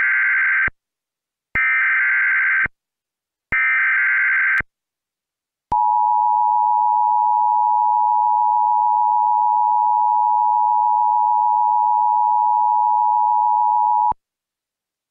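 Emergency Alert System tornado-warning alert. Three short bursts of screechy digital SAME header data, each about a second long and a second apart, are followed about six seconds in by the steady two-tone attention signal. The attention signal holds for about eight seconds, then cuts off abruptly.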